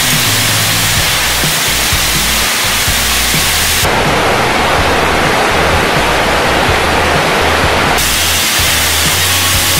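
Rocky mountain stream rushing over boulders: a loud, steady rush of white water. Its tone changes abruptly about four seconds in and again about eight seconds in. Music plays low underneath.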